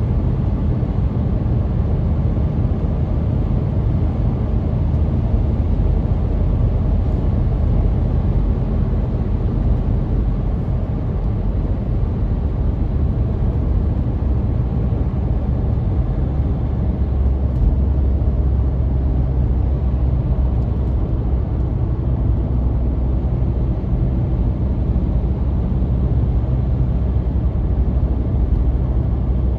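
Steady low rumble of a car cruising at motorway speed, tyre and engine noise heard from inside the cabin.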